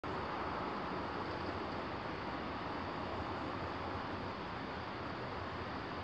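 Steady outdoor background noise of wind and distant road traffic.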